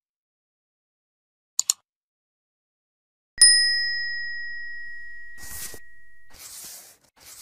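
Edited-in sound effects over digital silence: two quick double clicks, then a single bright bell ding that rings out and fades over about three seconds, followed by three short hissing whooshes.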